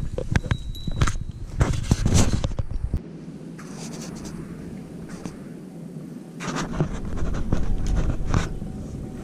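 Close footsteps and scraping handling noise from walking over dry ground. At about three seconds this cuts to a quieter steady hiss with scattered rustles and light clicks from movement near the microphone.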